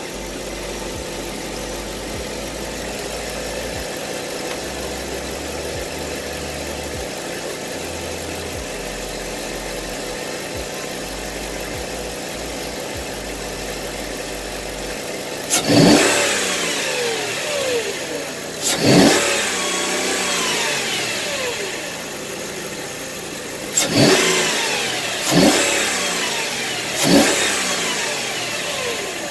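Mercedes-Benz CLS500 V8 engine idling steadily, then revved in five short throttle blips over the second half, each one dropping back toward idle.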